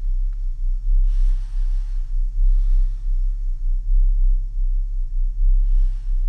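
Electronic sound-art drone: a deep low rumble that swells and fades about once a second under a faint steady tone, with washes of hiss about a second in and again near the end.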